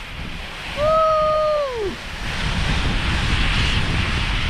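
A short held whoop from the rider about a second in, falling off at the end. Then wind rushing over the microphone as a sandboard slides down a sand dune, getting louder and steady from about two seconds in.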